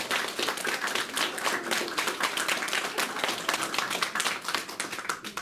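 Audience applauding: dense, uneven clapping from many hands that tapers off near the end.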